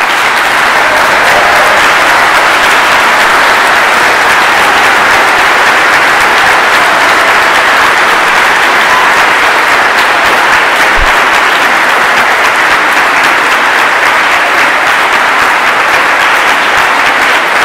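Loud, sustained applause from a large audience clapping.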